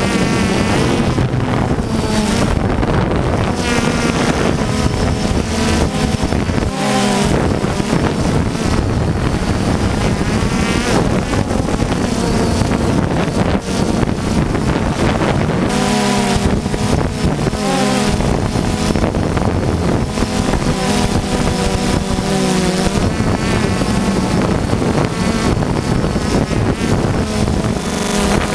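Quadcopter drone's motors and propellers buzzing steadily in flight, heard from the drone's own camera, with its pitch wavering up and down now and then as it manoeuvres. Wind on the microphone.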